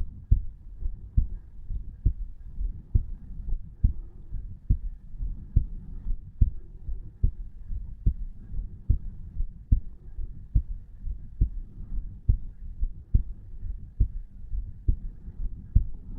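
Resting adult human heartbeat recorded at the chest over the tricuspid valve: steady lub-dub pairs of low thumps at about 70 beats a minute, the valves opening and closing normally.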